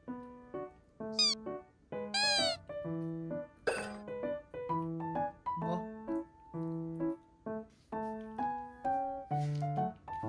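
Light background music with an even, bouncy run of short notes. Two high, gliding squeaks come about a second and two seconds in, and a brief burst of noise comes about four seconds in.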